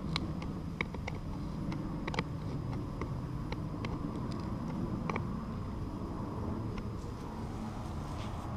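Steady low rumble, like wind on a small action-camera microphone, with a few scattered light metallic clicks as a four-way cross wrench turns the hex wheel nut of an HPI Savage X 4.6 RC truck wheel.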